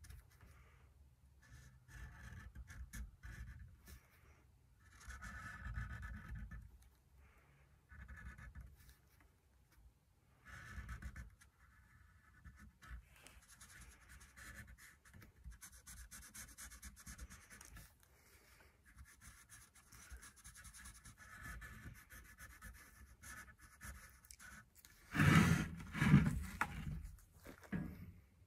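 Sharpie marker scratching in short, uneven strokes on the wood of an old hockey stick as faded letters are traced and filled in. A couple of louder bumps come near the end.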